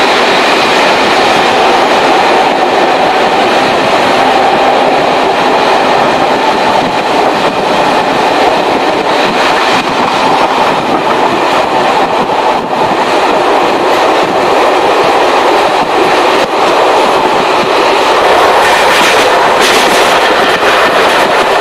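Local stopping passenger train running along the track as it pulls away from a station, heard from inside the carriage: steady noise of the wheels on the rails.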